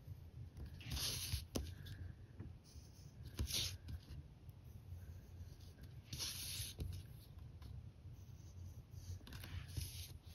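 Graphite pencil shading on a paper tile: faint scratchy strokes in several short bursts, about four in all, a few seconds apart.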